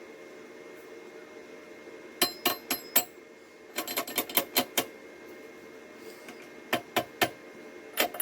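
Quick runs of light hammer taps on steel, each ringing briefly, in three or four short bursts over a steady hum. The steel is being struck while still hot from welding.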